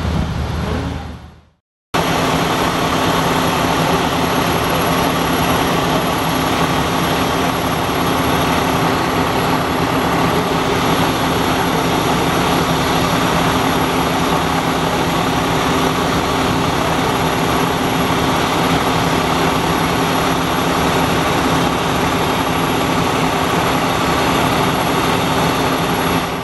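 A large vehicle's engine running steadily under a wide hiss, cutting in abruptly about two seconds in after a brief silence and fading out near the end.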